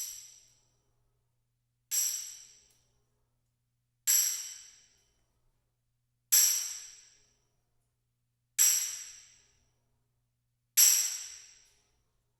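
Tambourine recorded in a large cave, struck six times about two seconds apart, each hit getting louder and its jingles ringing out into a long, lush cave reverberation that dies away over about a second.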